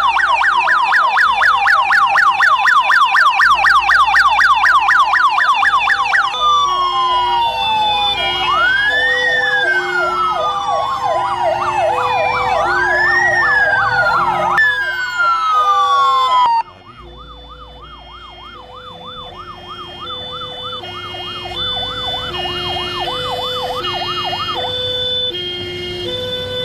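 Electronic emergency-vehicle sirens: a rapid yelp for about six seconds, then a slow rising-and-falling wail until about sixteen seconds in, then a quieter fast warble. A low two-note pattern alternates steadily underneath.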